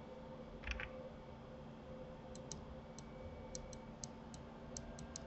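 Faint scattered clicks of a computer mouse and keyboard being worked: a soft double click under a second in, then about ten light clicks through the second half, over a low steady hum.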